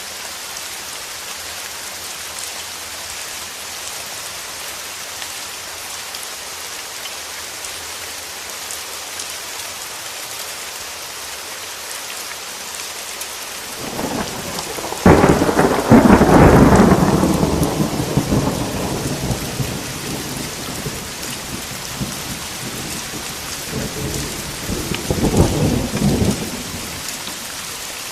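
Steady rain, with a thunderclap about halfway through: a sudden crack that rolls into a rumble dying away over a few seconds. A second, slightly fainter roll of thunder comes near the end.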